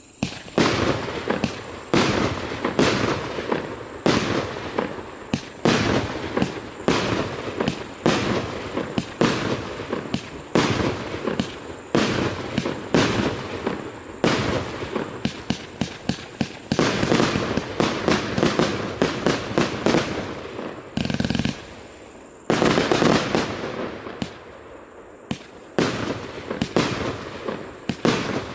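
A 288-shot, 1-inch consumer fireworks cake (Russian Pyrotechnics 'SSSR lite' RS7970) firing in rapid succession: a quick, steady series of launch shots and aerial bursts. A brief lull comes about three-quarters of the way in, followed by a dense, loud burst.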